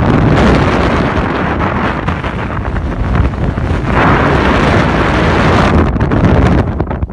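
Strong wind buffeting the microphone: loud, rough, rumbling gusts with no let-up. About four seconds in, a harder gust turns hissier for a couple of seconds.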